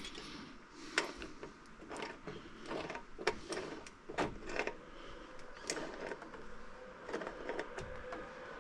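Irregular clicks and knocks of small hardware and tools being handled, roughly one or two a second.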